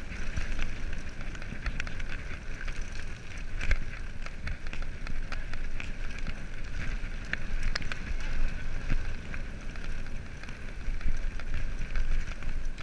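Mountain bike ridden fast over a grassy dirt track: a steady rumble of the tyres and wind on the microphone, with scattered clicks and rattles from the bike over bumps.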